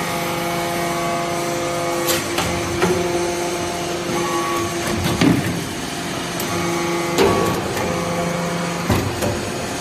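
Vertical hydraulic briquetting press running: a steady hum from its hydraulic pump, whose pitch shifts a few times as the ram cycles, with about five sharp metallic clanks from the ram and ejected briquettes.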